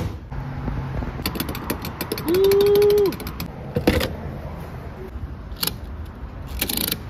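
Gas pump dispensing fuel through a nozzle into a car's filler neck. A run of rapid ticking starts about a second in, then a loud steady tone lasts under a second, followed by a few separate clicks and knocks.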